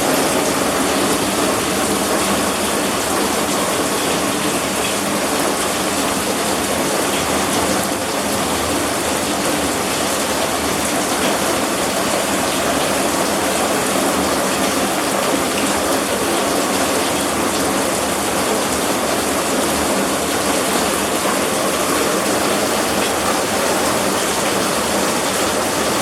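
Heavy thunderstorm rain pouring down steadily, a dense unbroken rush of water.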